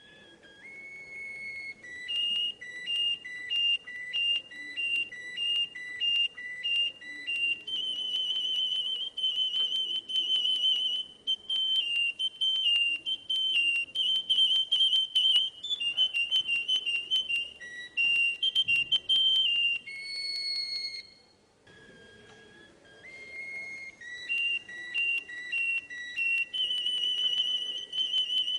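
Russian canary singing: clear whistled phrases of repeated two-note syllables, then fast rolling trills and held notes, with a short break about two-thirds of the way in before the song resumes.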